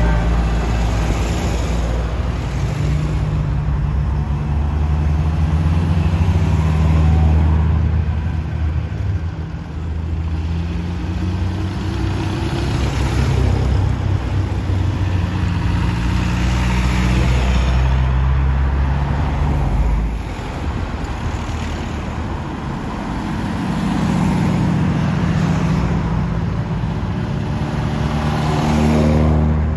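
Historic road vehicles' engines running, with a deep steady engine note for most of the time. The level dips at about twenty seconds, and near the end another engine rises in pitch as it revs up.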